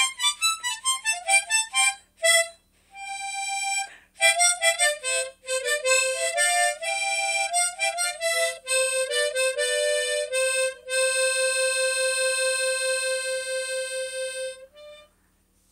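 Solo harmonica playing a blues/folk tune: quick runs of short notes and chords, then a long held note that wavers in a steady pulse before it stops about a second before the end.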